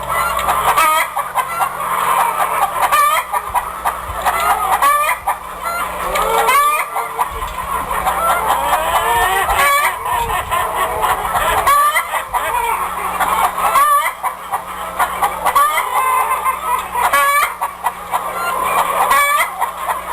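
A flock of chickens clucking and squawking continuously, many calls overlapping, with rooster crowing among them.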